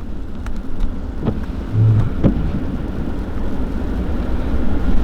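Low, steady rumble of a Mercedes-AMG C43's twin-turbo V6 heard from inside the cabin, with a few soft clicks and a brief low pulse about two seconds in.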